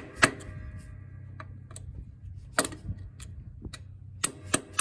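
Hammer tapping a rear drum-brake part on an ATV to seat it firmly: several sharp, irregularly spaced taps, a few of them louder.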